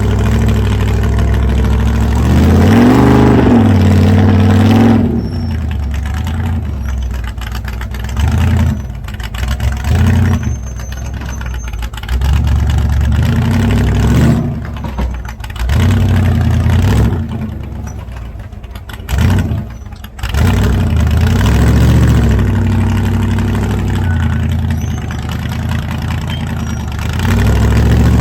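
Off-road rock crawler's engine revving in short throttle bursts while it works over rocks, with one longer rise and fall in pitch about three seconds in.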